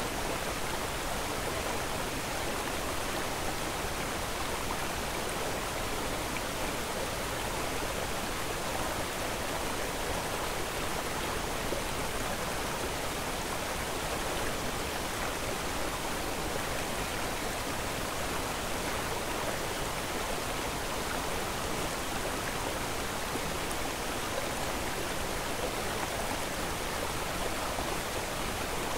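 Steady rushing noise, even and unchanging, with no separate sounds standing out of it.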